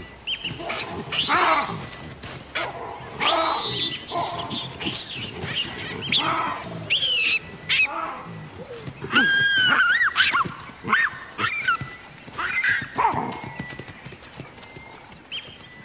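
Baboons screaming in a fight: a string of shrill calls that rise and fall in pitch, one after another.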